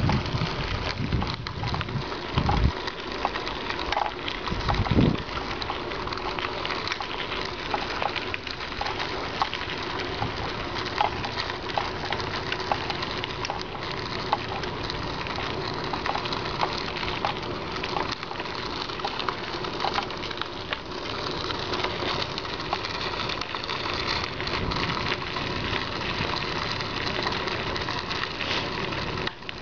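Bicycle riding along a park path: steady rolling noise of tyres and frame, with many small clicks and rattles throughout and a few low thumps in the first five seconds.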